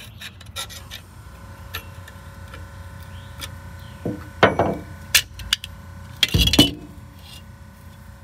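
Snap ring pliers and a steel pick clinking and scraping against a bus water pump's cast-iron housing while prying at the snap ring in its bore. Scattered light clicks lead up to louder metal scrapes and knocks, the loudest about four and a half and six and a half seconds in.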